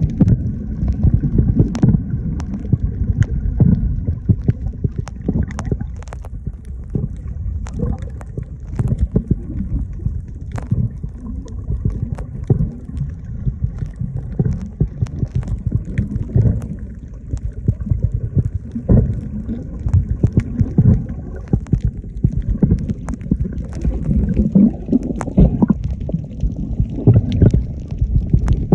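Underwater ambience: a churning low rumble of moving water with scattered clicks and crackles throughout.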